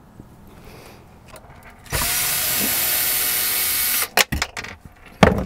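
Handheld power drill with a 3/4-inch Forstner bit running steadily for about two seconds, boring through the RV roof, followed by a few sharp knocks.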